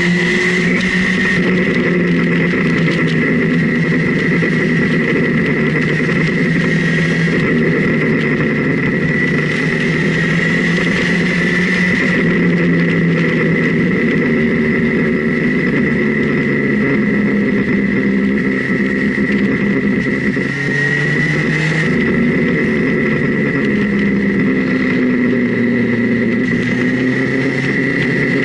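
Motorcycle engine running on the move, its note stepping up and down as the rider works the throttle and gears, with a steady high whine alongside and rushing wind noise.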